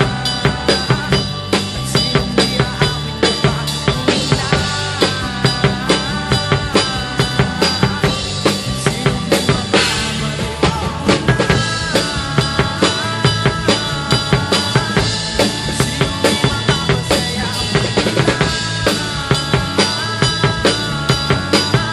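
Acoustic drum kit played along with a recorded song: a steady beat of kick and snare hits a few times a second, with a cymbal crash about ten seconds in, over the song's pitched melody.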